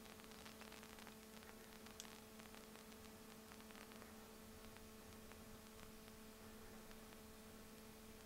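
Near silence: a faint steady hum with scattered faint crackling ticks and one sharper click about two seconds in. The crackling is from small black gnats swarming around the video camera.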